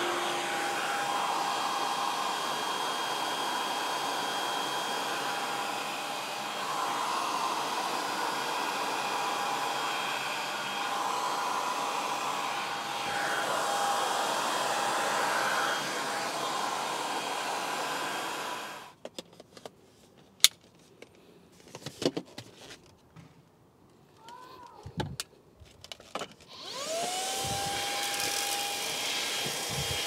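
Greenote GSC50 cordless stick vacuum's 200 W motor running handheld with its brush attachment, a steady whine with brush sweeping over hard surfaces. It cuts off about two-thirds of the way through, leaving a few faint clicks and knocks. Near the end the motor starts again, its whine rising and then holding steady.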